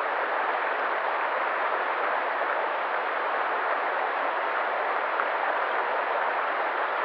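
Flowing river water rushing steadily: an even, unbroken hiss with no distinct splashes or changes.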